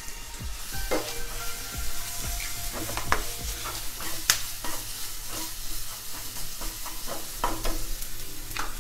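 Coarsely ground green peas sizzling in hot oil in a non-stick kadhai, with a spatula scraping and clicking against the pan as they are stirred.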